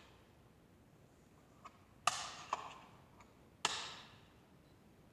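Sharp clicks of the Genie garage door opener's wall control buttons being pressed, a few faint ones and two louder ones about two and three and a half seconds in, each with a short echo.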